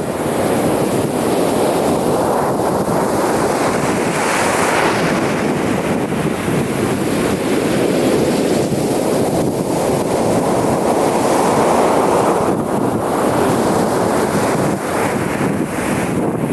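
Ocean waves breaking and washing up the beach, with wind buffeting the microphone. The surf swells louder about four seconds in and again from about eight to twelve seconds.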